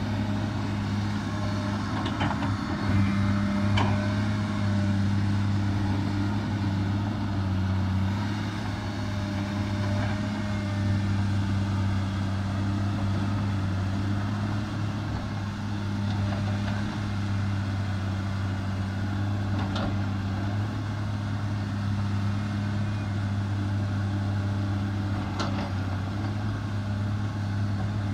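Komatsu crawler excavator's diesel engine running with a steady low hum as the machine travels over the pit floor, with a few sharp clanks, about two and four seconds in and twice more in the second half.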